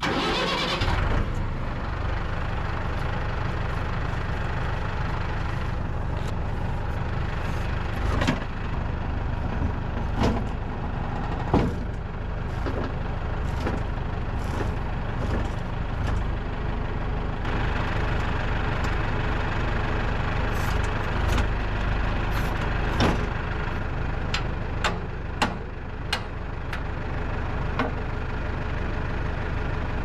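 Tractor engine running steadily, with sharp knocks and clanks every few seconds.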